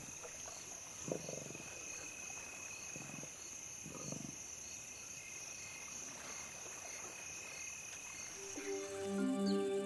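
Night chorus of crickets trilling steadily, with a few short low growls from lions feeding on a carcass, about one, three and four seconds in. Music comes in near the end and the insect chorus stops.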